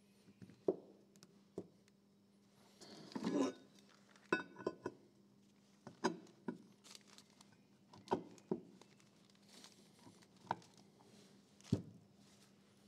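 Heavy metal parts of an Eckold Handformer (the lever arm, rollers and plate) being handled and set down on a paper-covered workbench: scattered clicks and knocks, with a short scrape about three seconds in.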